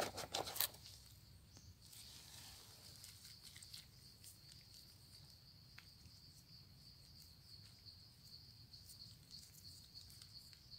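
Steady high-pitched drone of insects such as crickets. Near the start, a brief rustle of a large leaf being handled in a woven basket. Later come faint crackles of dry leaf litter as a mushroom is dug out by hand.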